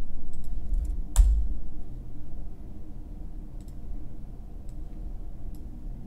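Scattered light clicks from a computer mouse, with one sharp, louder click and a low thump about a second in.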